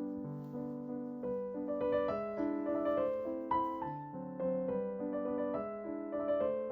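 Background piano music: slow, sustained chords with a melody moving over them.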